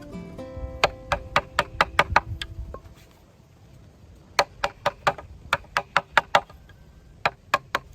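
Quick sharp knocks from a tool striking bamboo, about three or four a second, in runs broken by short pauses.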